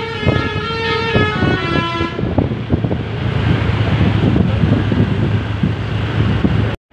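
A bus's telolet basuri musical horn playing a tune of several held notes, stopping about two seconds in, followed by the bus's engine and road noise with a steady low hum. The sound cuts off briefly just before the end.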